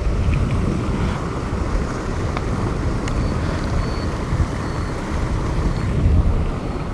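Wind buffeting the microphone: a steady, uneven low rumble, with a few faint short high peeps over it.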